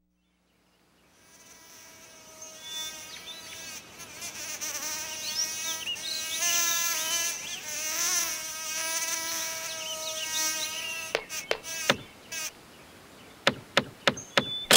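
Cartoon bee buzzing sound effect: a buzz that fades in after a second of silence and wavers up and down in pitch, then gives way near the end to a quick run of short clicks and taps.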